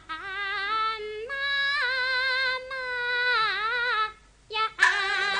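A woman singing a drawn-out line of pingju (Chinese opera) in a high voice, holding and bending long notes with a wavering vibrato. The voice breaks off about four seconds in, and near the end the instrumental accompaniment comes in loudly with a sharp strike.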